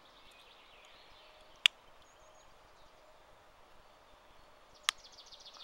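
Two sharp clicks about three seconds apart, a Victorinox Swiss Army knife's tools snapping against their backspring as they are worked. Faint birdsong chirps behind them.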